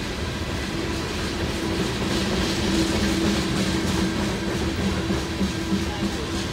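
Freight train of covered hopper cars rolling past: a steady rumble of steel wheels on the rails with a low hum, a little louder for a couple of seconds in the middle.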